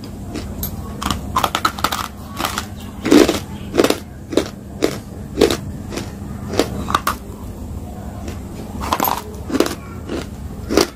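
A hard chalky lump of Nakumatt chalk being chewed with the mouth closed: irregular sharp crunches, one or two a second, with a low steady hum beneath.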